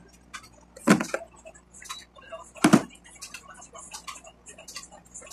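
Two sharp knocks about a second and three-quarters apart, among light, irregular clicks and rustles of hairdressing work with hair clips and a comb.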